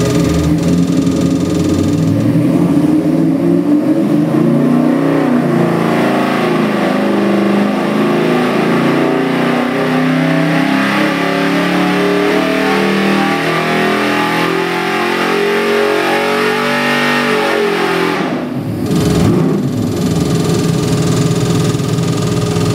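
Ford 408 Windsor stroker V8 with MSD Atomic EFI making a dyno pull under load: it climbs steadily from idle to over 4,000 rpm. About three-quarters of the way through, the throttle closes and the revs drop quickly back to a steady idle.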